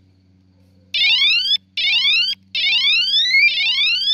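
Electronic bicycle siren sounding a whoop tone. It starts about a second in and rises in pitch four times in a row, each sweep climbing for a little under a second.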